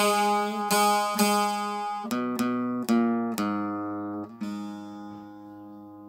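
Long-necked plucked lutes playing the closing phrase of a folk elegy: a run of separately plucked notes, then a final note left to ring and die away.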